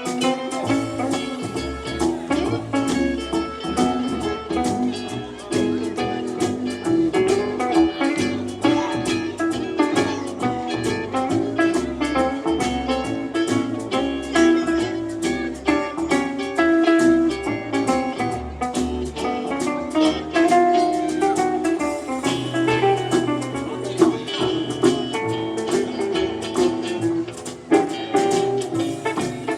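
Live acoustic band playing an instrumental tune, with guitar picking and strumming.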